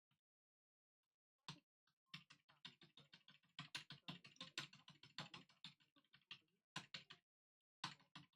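Typing on a computer keyboard: a faint run of quick, irregular key clicks starting about a second and a half in, with a couple of short pauses near the end.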